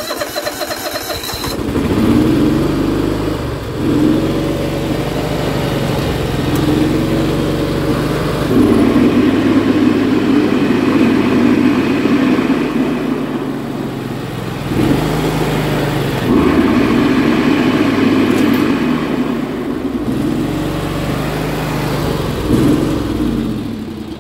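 Yamaha YT6800 riding mower engine cranking briefly and starting, then running with its pitch rising and falling several times as the throttle is worked. The PTO-driven mower deck blades spin up to full speed. The sound falls away near the end.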